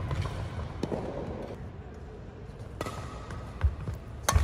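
Badminton rally: sharp cracks of rackets striking the shuttlecock, a second or two apart, with the loudest near the end. Between them, low thuds of players' footsteps on the wooden court.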